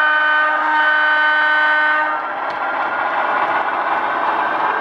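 An HO-scale model diesel locomotive's DCC sound decoder sounding its horn in one steady blast that cuts off about two seconds in, over the decoder's diesel engine sound, which keeps running after it.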